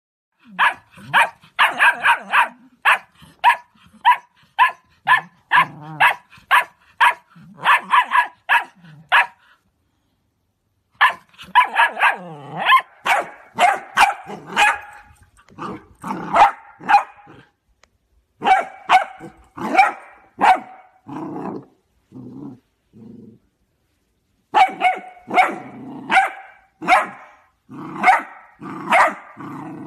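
Cocker spaniel barking in quick runs, about two barks a second, with short pauses of a second or two between the runs.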